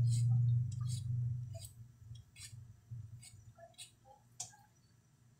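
Light, irregular clicks and taps of kitchen things being handled at the counter, about one or two a second, over a low hum that fades out in the first two seconds.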